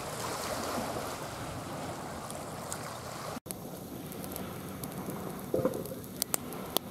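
Small sea waves washing and lapping on the shore. After an abrupt cut about halfway through, a quieter campfire crackles, with a few sharp pops near the end.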